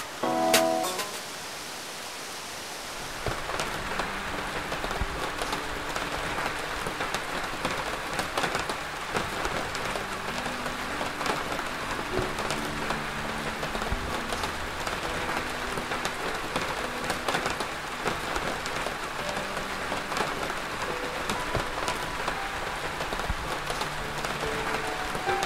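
Steady rain falling, a dense patter of drops that swells about three seconds in, with soft background music playing underneath.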